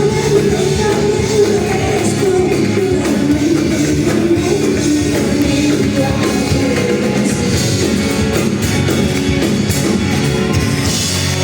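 Live concert music: a woman singing over band accompaniment, loud and continuous.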